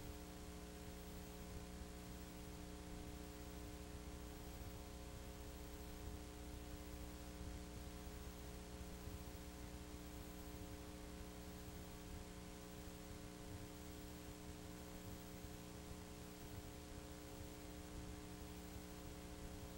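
Faint steady electrical hum over a bed of hiss, with no other sound.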